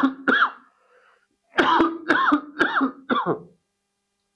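A man coughing: a couple of coughs at the start, then after a short pause a run of four more.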